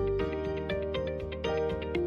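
Background music: a quick melody of short, rapidly repeated notes over sustained tones, with the low bass dropping out a moment in.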